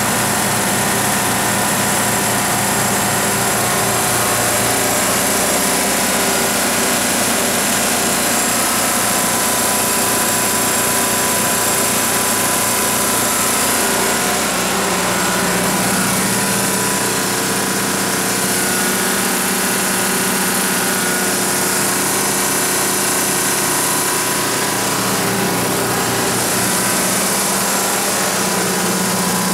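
Detroit Diesel 6V-92 turbocharged two-stroke V6 diesel engine of a 300 kW standby generator set, running steadily.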